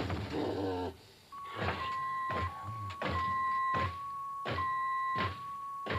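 Regular heavy thuds, about one every 0.7 seconds, over a steady high tone that shifts slightly between two close pitches every few beats.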